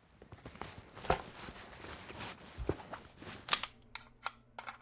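Scattered sharp clicks over light rustling handling noise, the loudest click about three and a half seconds in and a few quicker ones near the end, with a faint steady hum underneath at the close.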